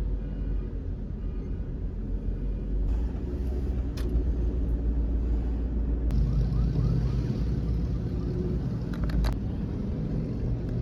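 Minivan driving, heard from inside: a steady low rumble of engine and road, with the engine hum growing stronger about six seconds in and a few faint clicks.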